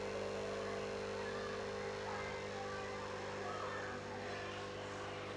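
Aquarium pump humming steadily, a low electric hum with overtones.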